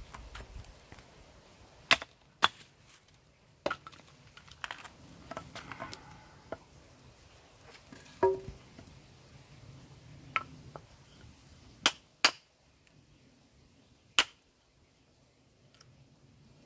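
A series of sharp, sudden knocks, about eight at irregular gaps, the loudest a quick pair about two seconds in and another pair about twelve seconds in, with faint scuffling in between.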